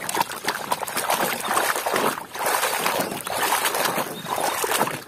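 Muddy water sloshing and splashing in a plastic basin as a toy cement mixer truck is swished and scrubbed through it by hand, with a brief pause about two seconds in.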